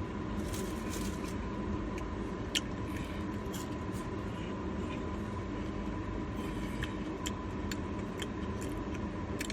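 Eating sounds from fried chicken strips: small scattered crunches and clicks, one sharper about two and a half seconds in. Under them runs a steady low rumble with a faint, thin, steady high tone.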